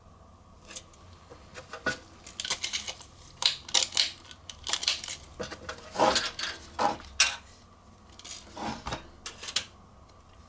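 Sheet-metal PC side cover being handled, giving irregular metallic clicks, knocks and short clattering rattles.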